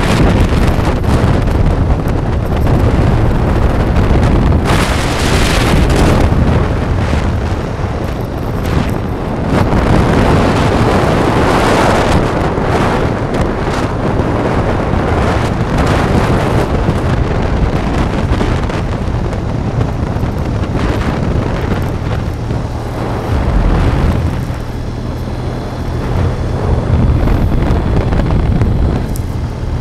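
Wind rushing over the microphone of a moving road vehicle, swelling and easing in gusts, over a steady low rumble of engine and tyres.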